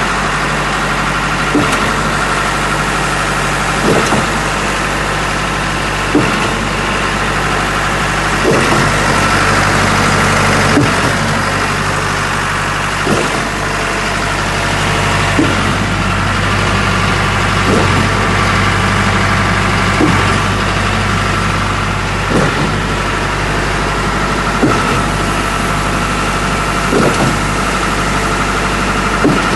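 Concrete pump running steadily, its engine droning, with a sharp clunk about every two and a half seconds as the pump changes stroke.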